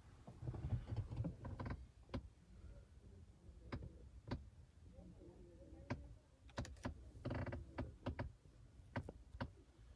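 Scattered light clicks and knocks, with two spells of low rustling rumble, one about half a second in and one past seven seconds: handling noise from a handheld camera being moved around a car's dashboard.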